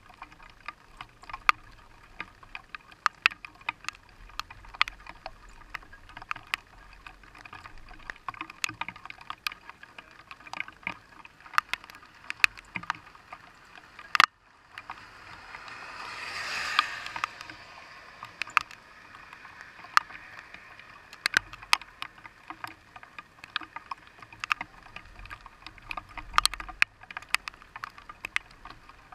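Rain pelting a vehicle's windshield and body from inside the cab: a steady patter of sharp, irregular ticks of drops striking the glass and metal. About halfway through a rush of noise swells up and fades away over a few seconds.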